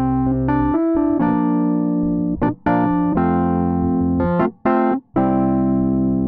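Rhodes Wurli software plugin, a virtual Wurlitzer 200A electric piano, playing chords over low bass notes. The sound stops briefly twice, about two and a half and five seconds in.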